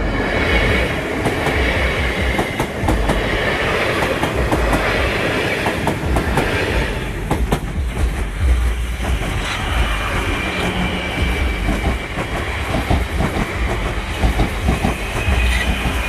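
Electric multiple-unit trains passing at close range over a level crossing: a class 450 Desiro at the start and a class 444 Desiro near the end, with a steady low rumble and wheels clattering over the rail joints and crossing.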